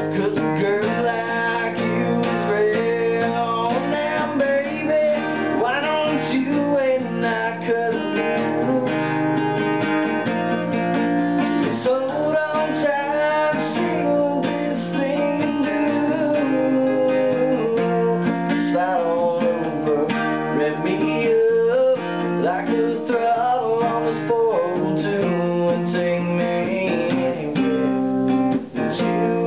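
A man singing a country song, accompanying himself on an acoustic guitar.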